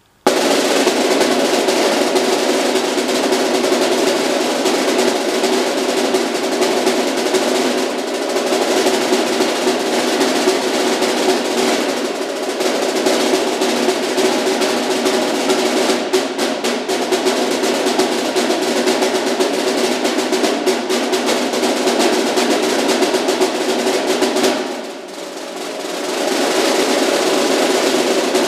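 Snare drum played with sticks in a fast, continuous rudimental solo, mostly rolls. About 25 seconds in it drops to a soft roll and swells back up to full loudness.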